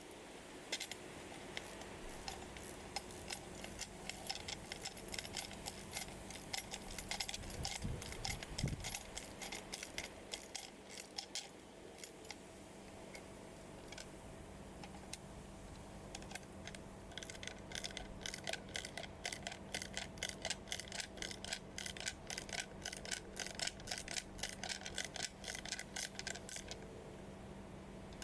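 Rapid metallic clicking of an 8 mm wrench tightening the bolts that hold a felling dog on a chainsaw's clutch cover, in two long runs of quick, even clicks with a pause between them.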